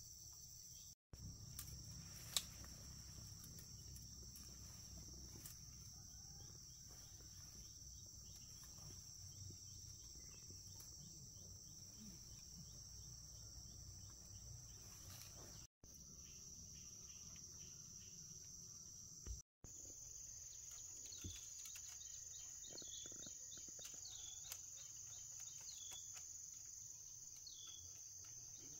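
Steady, high-pitched drone of insects, with one sharp click about two seconds in. In the second half a bird chirps over and over. The sound cuts out briefly three times.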